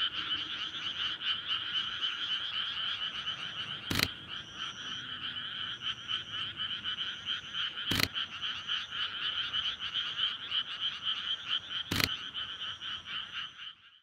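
A dense chorus of many frogs calling together in fast rattling trills. Three sharp clicks cut through it, evenly spaced about four seconds apart, and the chorus cuts off abruptly near the end.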